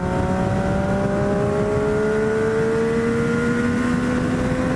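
Triumph Daytona 675 sportbike's inline-three engine pulling steadily in one gear, its pitch climbing slowly and evenly as the bike accelerates, with wind noise underneath.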